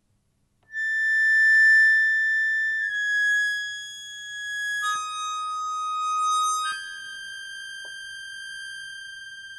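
Soundtrack music: a single high reed instrument plays a slow line of four long held notes. It starts just under a second in, steps down twice, rises a little for the last note, and that note fades away.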